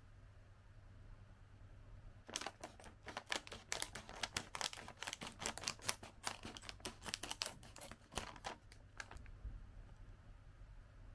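Foil-lined potato chip bag crinkling as it is handled and cut open across the top with scissors. A dense crackle starts about two seconds in and eases off near the end.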